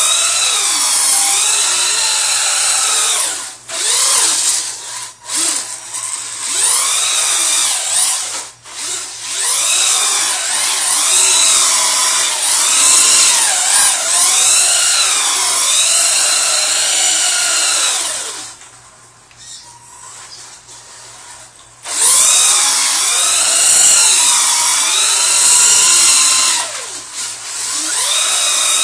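Titan electric motor of a Duratrax Evader RC truck whining as the truck spins donuts, its pitch rising and falling in waves. It drops away for about three seconds near two-thirds of the way through, then picks up again.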